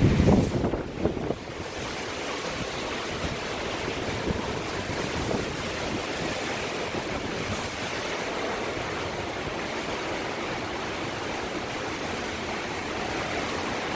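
Hurricane-force wind rushing steadily, with heavy gusts buffeting the phone's microphone in the first second or so.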